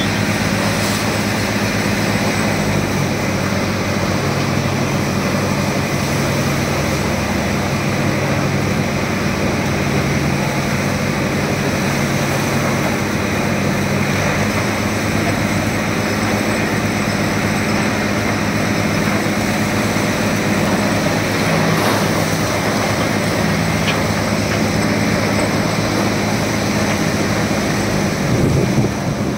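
Tractor diesel engine running steadily under load while it hydraulically tips a trolley-load of sugar cane, over a dense, even machinery din. The engine's pitch wavers slightly now and then.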